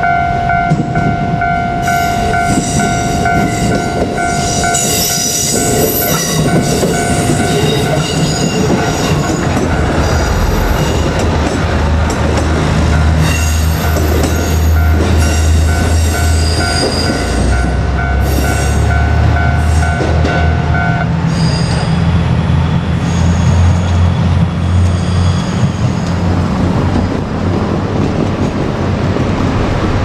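A Japanese level-crossing bell rings steadily while a KiHa 200 diesel railcar comes through, with high wheel squeal early on. The bell stops about two-thirds of the way in, and the railcar's diesel engine goes on running with a low, steady rumble.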